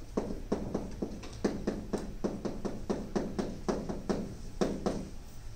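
Handwriting during a worked calculation: a quick, irregular run of sharp taps and short strokes, about four a second.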